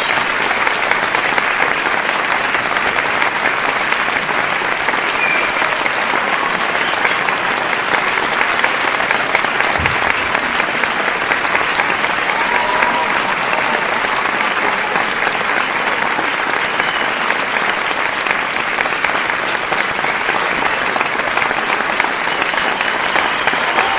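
A large crowd applauding steadily, many hands clapping in a dense, even crackle that doesn't let up, with a few faint shouts or whoops in it.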